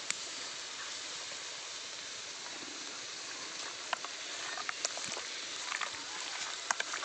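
Onions frying in oil, a steady hissing sizzle, with faint scattered clicks from hands mixing mutton with salt and curd in a steel bowl.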